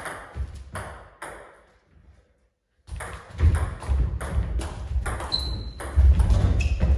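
Table tennis ball clicking: a few evenly spaced taps near the start, then a fast rally of ball strikes off bats and table. Heavy low thuds of footwork run under the rally.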